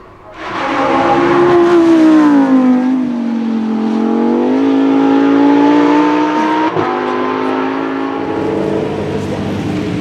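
Lamborghini Huracán EVO Spyder's 5.2-litre V10 under hard throttle. It comes in loud and suddenly, its pitch sags and then climbs again before holding steady, with one short sharp crack about two-thirds of the way through.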